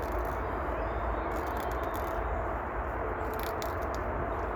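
Small knife blade scraping the inside of a cut in bamboo to remove burrs, a few light scrapes and clicks over a steady background hiss.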